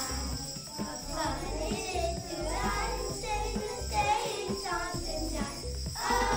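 Children singing together, with small hand-held jingle bells shaken along.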